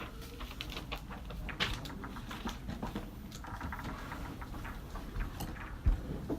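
University library study-room ambience: scattered small clicks, taps and short paper-like rustles from people working at desks over a low steady hum, with one dull thump about six seconds in.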